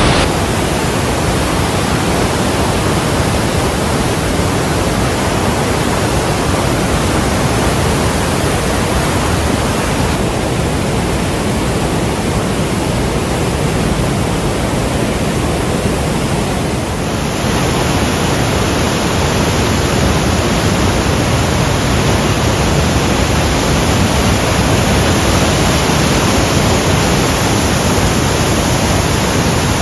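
Li Phi (Somphamit) waterfall on the Mekong: a loud, steady rush of powerful white water pouring through the rocks.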